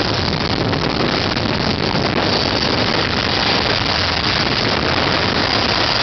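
Handley Page Victor jet bomber's four jet engines running at high power as it rolls along the runway, a loud, steady rushing roar.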